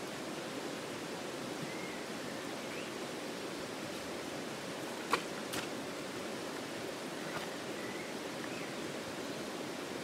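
Shallow stream water running steadily over rocks, an even rushing hiss. Two short sharp clicks about halfway through, half a second apart.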